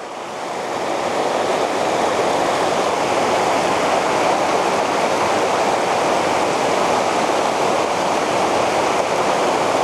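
River current rushing steadily, an even hiss of flowing water that swells slightly over the first second and then holds.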